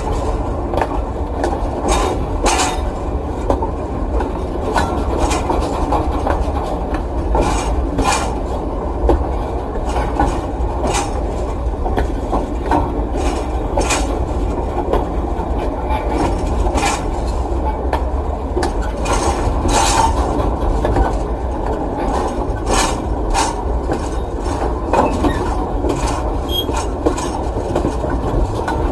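Cargo train running past with a steady heavy rumble, broken by irregular sharp clacks every second or so.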